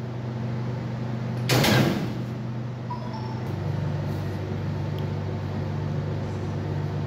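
Steady electric hum of bakery machinery, which shifts to a different pitch about three and a half seconds in, with one brief rushing noise about one and a half seconds in.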